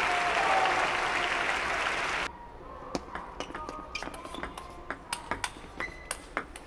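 Loud crowd applause with cheering voices for about two seconds. It cuts off sharply and gives way to a table tennis rally: the plastic ball clicks off the paddles and the table in a quick run of sharp ticks, about two to three a second.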